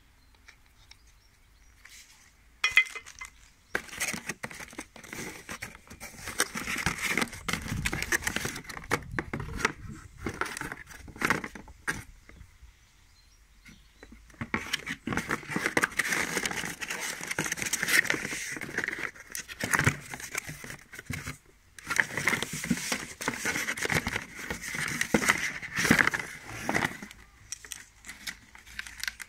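Cardboard box and packaging rustling, crinkling and scraping as an angle grinder and its power cord are pulled out of the box by hand. The handling comes in three stretches with short quiet pauses between.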